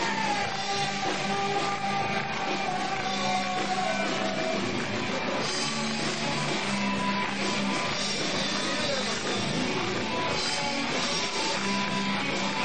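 Rock band playing live, led by guitar. A long high held note slides slowly down in the first few seconds.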